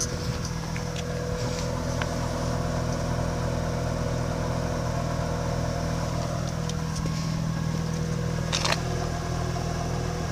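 2005 Mazda RX-8's twin-rotor rotary engine idling steadily and evenly, with no rough idle after a cold-ish start following a day and a half of sitting.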